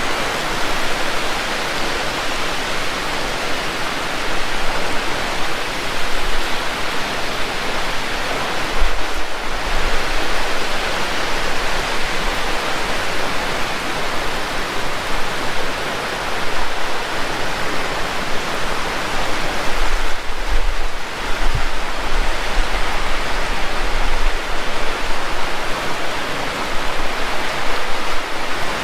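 Heavy rain falling steadily as a loud, dense hiss, with brief low rumbles about nine seconds in and again around twenty seconds in.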